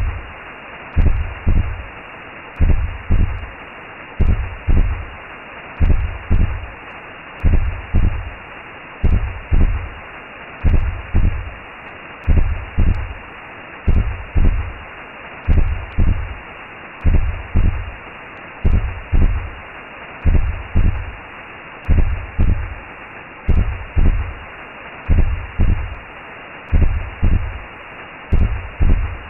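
Recreated womb sound for lulling a baby: a steady whooshing hiss with a low, even heartbeat, a double thump a little faster than once a second.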